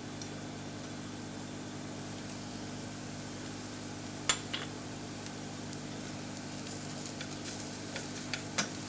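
Chopped onions sizzling in hot olive oil in a frying pan: a steady hiss, with one sharp click about four seconds in and a few lighter clicks near the end.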